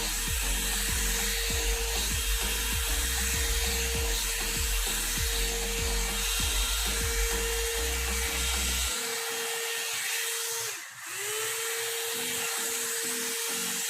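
One-step hot-air brush dryer running, a steady motor whine over rushing air. About eleven seconds in the whine drops away briefly and climbs back up to speed.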